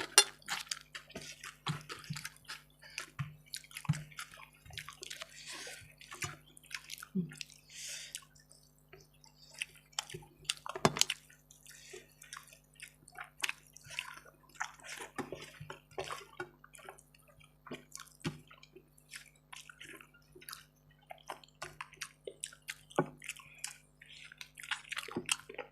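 Wet eating sounds of rice and chicken curry being eaten by hand: many quick, short squelches, smacks and clicks of fingers, food and chewing mouths.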